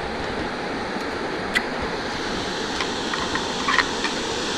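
Steady rushing noise of wind and lapping lake water, with a few faint ticks in the second half.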